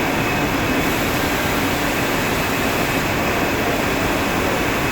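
A machine's engine running steadily, a constant drone with a faint hum and no change in level.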